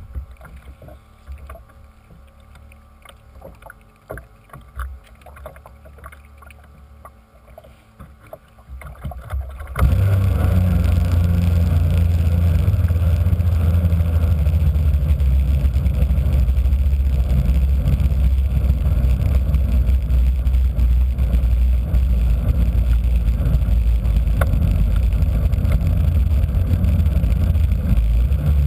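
Radio-controlled model powerboat's engine, heard up close from its deck: after a stretch of faint clicks and knocks, it starts abruptly about ten seconds in and then runs steadily.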